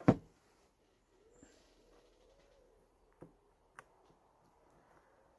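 A sharp knock right at the start, then faint handling sounds and two small clicks as a Briggs & Stratton carburettor's float bowl is fitted and its nut screwed in by hand.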